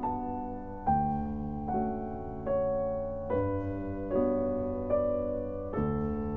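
Slow piano music: a new note or chord is struck about every 0.8 seconds, each ringing on and fading, over a held low bass.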